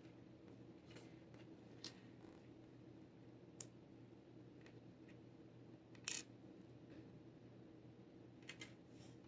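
Faint, scattered clicks of clear jigsaw puzzle pieces being handled and tried against each other, about five in all, the loudest about six seconds in, over a low steady hum.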